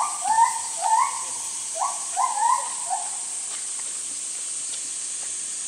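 A bird gives a quick series of about seven short calls in the first three seconds, over a steady high insect drone.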